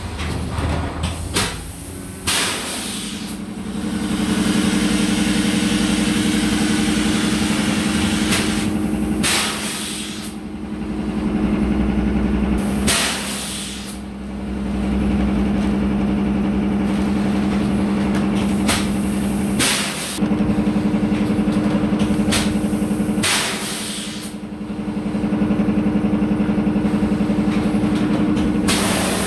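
Factory machinery running with a steady hum that drops out every few seconds for a short, loud hiss of released compressed air, repeating on a regular cycle of about three and a half and seven seconds.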